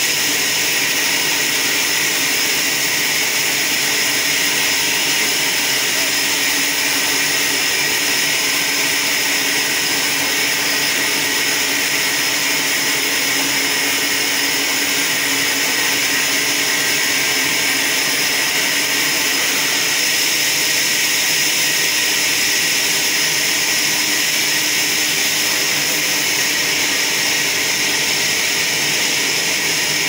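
Large vertical band saw of a trolley sawmill running and sawing through a wooden log carried on its carriage: a loud, steady, high-pitched whir that does not let up.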